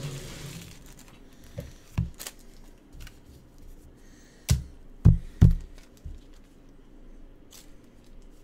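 Background music with a few sharp, irregularly spaced thumps. The loudest are a pair about a third of a second apart, a little after halfway.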